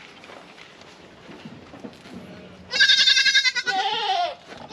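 Kiko goat bleating once, a long wavering bleat that starts about two and a half seconds in and lasts about a second and a half.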